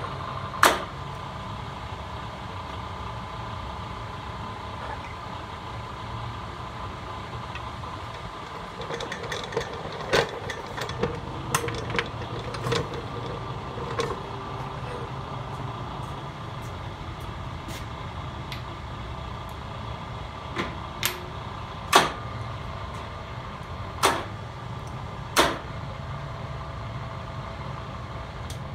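Solberga SE-1235 single-spindle drill press with its 3 HP three-phase motor running steadily: a hum with a high tone over it. Sharp knocks and clicks break in: one loud knock about a second in, a cluster of clicks in the middle, and three louder knocks in the last third.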